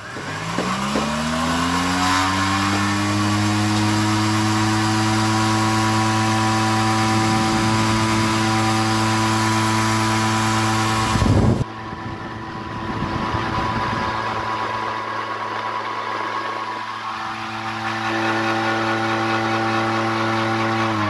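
Cotton candy machine's copper spinner head driven by its motor straight off a battery charger, with no speed controller: a whine that rises as it spins up over the first two seconds, then runs steady and very fast, and falls in pitch as it winds down at the very end. About halfway there is a brief loud knock, after which the hiss behind the whine drops.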